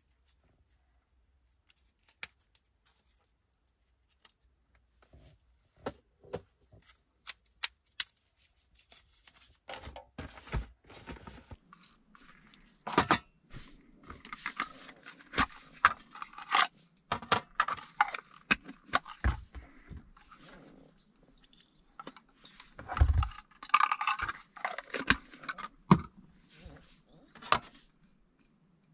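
Camping gear being handled and unpacked: scattered sharp plastic clicks at first, then from about ten seconds in denser rustling, clinks and knocks of containers, cookware and stove parts being set out, with a few louder thumps.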